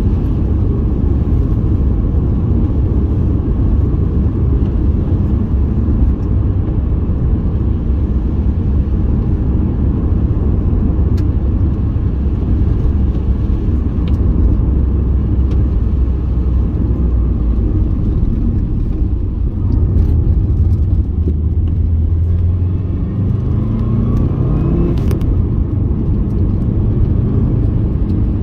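A road vehicle on the move: a steady low rumble of engine and road noise, with a rising engine note about three-quarters of the way through.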